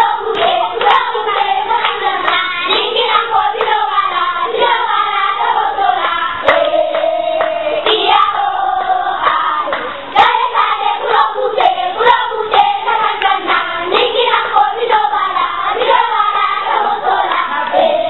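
A group of children singing a West African children's song together in chorus, with steady hand clapping keeping the beat.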